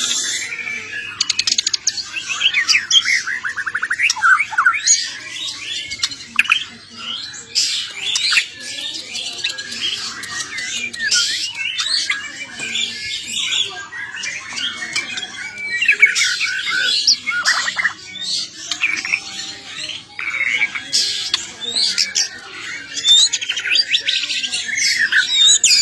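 Songbird singing a fast, unbroken string of varied chirps, trills, sweeping whistles and harsh squawky notes, pausing only briefly now and then.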